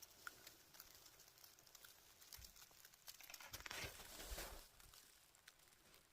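Near silence: faint scattered crackles, with a soft rushing swell about three and a half to four and a half seconds in.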